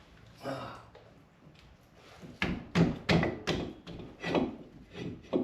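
Sharp clunks and knocks of metal parts and tools being handled. Several come in quick succession around the middle, with a few more towards the end.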